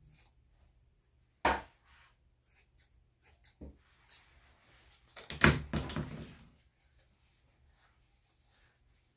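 Sharp snips and small clicks of thinning shears cutting mats out of a dog's tail coat. About five and a half seconds in there is a louder cluster of knocks and rustling.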